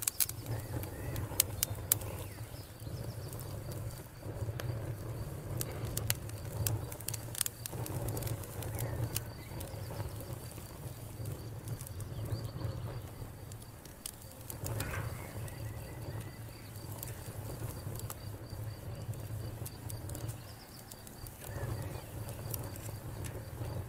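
Wood campfire crackling, with irregular sharp pops and snaps that are loudest in the first couple of seconds, over a steady low rumble.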